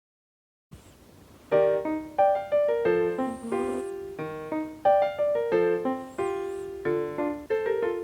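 Background music: a light keyboard tune with a piano sound, notes struck in quick succession. It starts about a second and a half in, after a brief silence.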